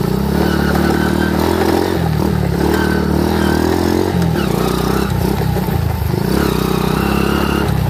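Modified motorbike engine running under way, its pitch dipping and climbing again a few times as the throttle is eased and reopened.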